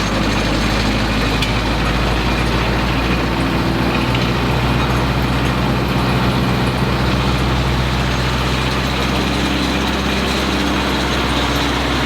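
Diesel engine of a 9-inch Echo Bear Cat wood chipper running steadily, its pitch shifting slightly a few seconds in.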